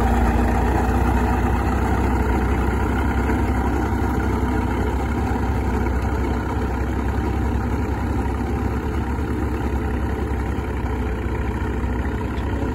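Fordson N tractor's four-cylinder side-valve engine running steadily under load while pulling a plough, growing slowly fainter as it moves away.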